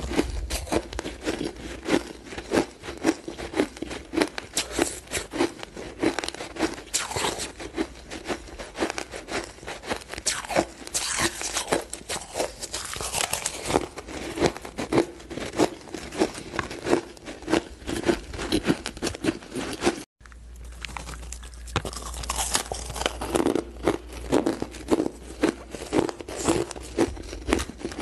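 Close-up crunching and chewing of powdery frozen ice, a quick run of sharp crunches several times a second, cutting out for an instant about two-thirds of the way through.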